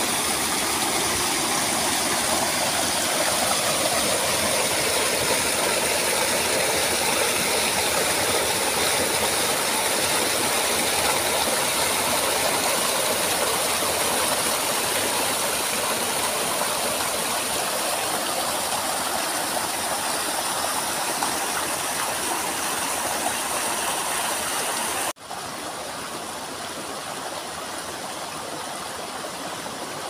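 Water rushing and splashing as it falls over rocks into a pool: a steady, even roar of a small waterfall and cascading stream. About 25 seconds in it cuts abruptly to a quieter, more distant rush of falling water.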